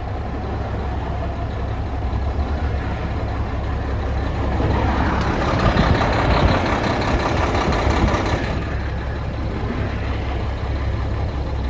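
Cummins N14 diesel truck engine idling steadily on a newly replaced fuel pump, as a cylinder cutout test begins. About five seconds in, a louder rushing noise rises over the idle for about four seconds, then drops away.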